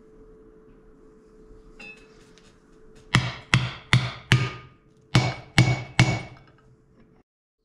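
Hammer striking a steel driver to tap a wheel seal into a disc brake rotor hub: seven sharp metallic strikes, each ringing briefly, four in quick succession and then three more after a short pause. A few light clicks come before them as the driver is set in place.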